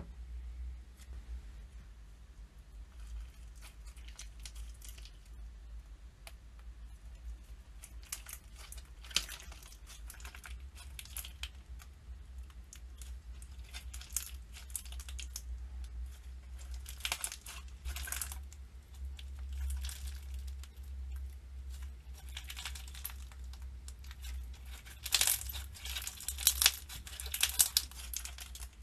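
Slime being worked by hand: crackling, popping clicks in short bursts, densest and loudest near the end, over a steady low hum.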